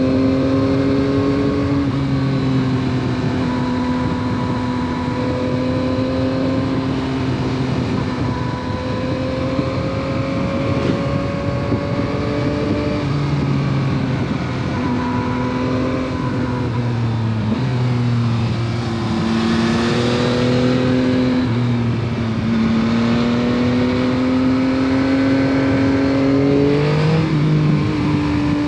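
Yamaha MT-09 SP's 890 cc three-cylinder engine through its stock exhaust, under way and pulling through the gears. The pitch climbs slowly, then drops several times at the shifts. A brief rush of noise comes about two-thirds of the way through.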